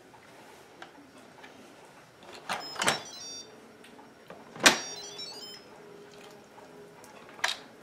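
Instant Pot's stainless lid being twisted to unlock and lifted off after the pressure has fully released. There is a scraping slide about two and a half seconds in, then a sharp metallic clunk with a brief ring about halfway through, the loudest sound, and a shorter click near the end.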